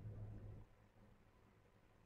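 Near silence: room tone, with a faint low hum that stops about half a second in.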